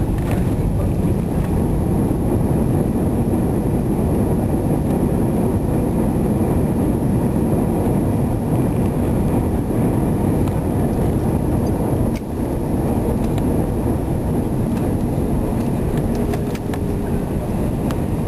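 Airbus A320 cabin noise during the landing rollout: a loud, steady low rumble of the engines and the wheels on the runway. It dips briefly about twelve seconds in.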